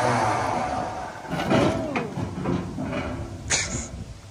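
Trailer's electric winch running as it pays out cable to let a pickup truck down off the trailer, with a short hiss near the end.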